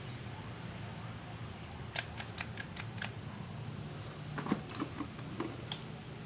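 Sharp hard-plastic clicks and knocks from a cordless drill being handled and set into its moulded plastic carrying case: a quick run of about six clicks a couple of seconds in, then a few scattered knocks, over a steady low hum.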